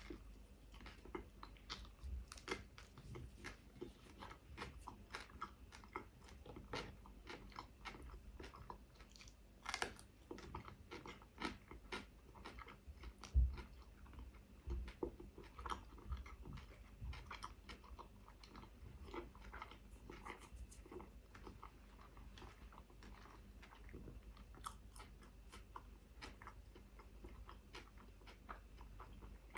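Close-miked eating of a chicken shawarma wrap: biting and chewing with irregular wet smacks and crunchy clicks, and a dull thump about halfway through.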